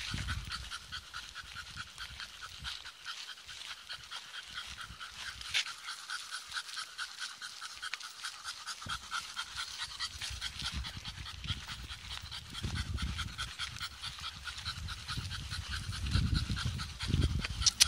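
French bulldogs panting rapidly and evenly as they trot, with a low rumble on the microphone in the second half.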